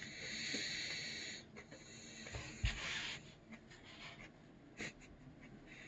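A man breathing hard through his mouth while chewing a superhot chili pepper: a long hissing breath, then a shorter one about two and a half seconds in, with a couple of soft low knocks between them. This kind of breathing is typical of drawing air over the mouth against the burn of a superhot pepper.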